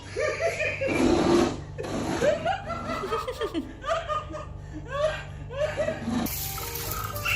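Laughter in short, repeated, high-pitched bursts, giving way to background music about six seconds in.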